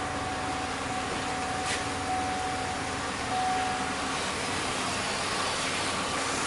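Chevy Impala engine running steadily at idle, with a thin steady whine over it that fades out about four seconds in.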